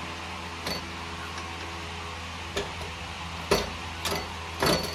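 Short metallic clicks and knocks from a screwdriver working a burner fitting inside a stainless-steel gas stove body, about five of them, the loudest about three and a half seconds in.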